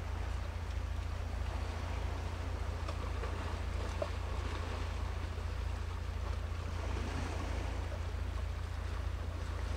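Steady seaside ambience: a constant low rumble of wind on the microphone under an even wash of sea noise, with no distinct events.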